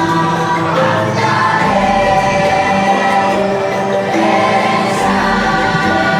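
Choral music from the boat ride's soundtrack: a choir holding slow, sustained chords that shift every second or so.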